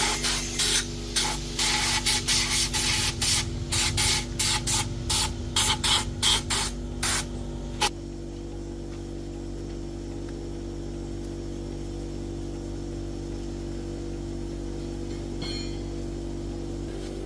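Short, loud bursts of hissing air from a compressed-air gun, about twenty in the first eight seconds, then stopping suddenly. A steady machine hum runs underneath throughout.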